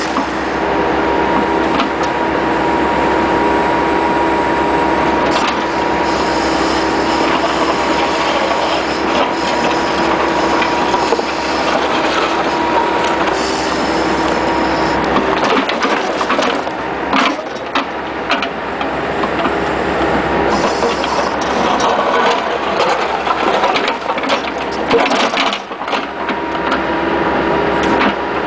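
Bobcat skid-steer loader with a 709 backhoe attachment running steadily while digging broken asphalt out of a trench, with a held tone over the engine and occasional sharp knocks.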